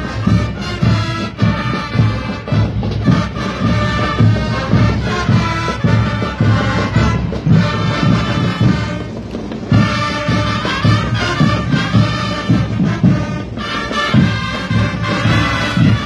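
School brass band playing: massed brass over a steady, regular drum beat.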